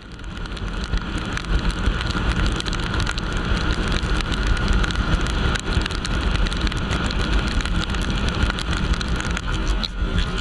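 Honda VTR 250 motorcycle at highway speed in heavy rain: wind rushing over the microphone with a heavy low rumble, and rain and spray hissing off the wet road. The sound fades in over the first second and then stays steady.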